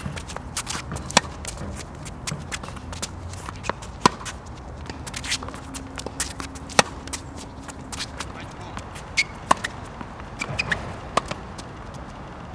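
Tennis rally on an outdoor hard court: sharp pops of the ball struck by rackets every couple of seconds, with ball bounces and the scuff of tennis shoes on the court between shots.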